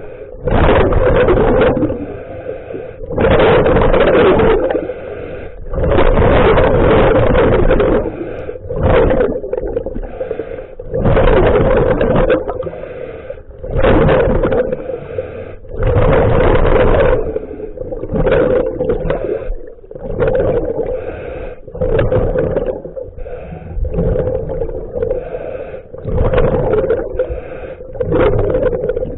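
Scuba diver breathing through a regulator underwater: loud bursts of exhaled bubbles every two to three seconds, with quieter inhalations between them and a steady hum underneath.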